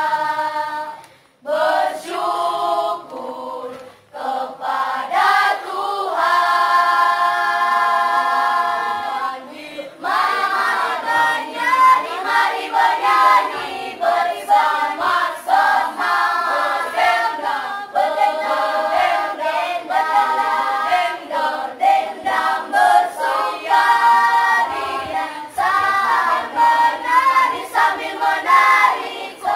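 Children's choir singing masamper, the unaccompanied part-singing of the Sangihe islands. The singing breaks off briefly twice in the first few seconds and holds a long chord near the middle, then moves into a quicker, rhythmic passage.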